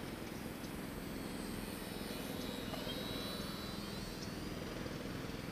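Volantex Mini Trainstar micro RC airplane's electric motor and propeller in flight: a faint high whine whose pitch drifts slightly, over steady low background noise.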